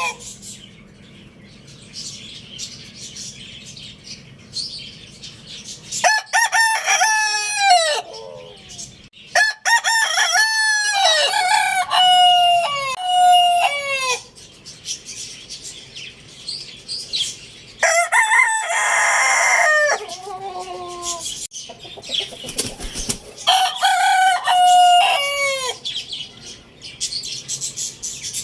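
Roosters crowing again and again, each long crow ending in a falling note, several crows overlapping in quick succession in the middle, with quieter gaps between bouts.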